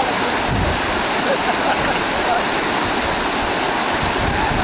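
Steady rushing of a shallow mountain stream running over rocks.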